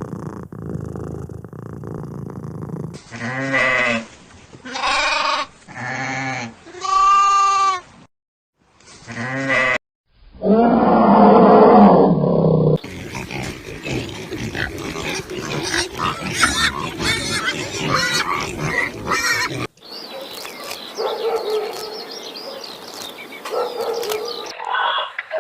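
A string of different animal calls joined by abrupt cuts: five short pitched calls, then one loud, low, rough roar-like call lasting a few seconds, then a long stretch of many overlapping calls.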